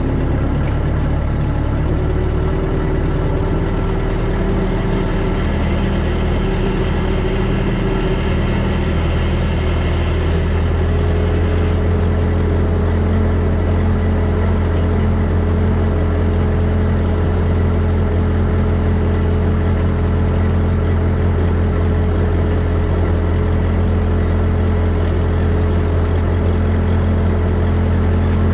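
Heavy-equipment engine running steadily at a constant speed, with a strong low hum; a faint hiss above it stops about twelve seconds in.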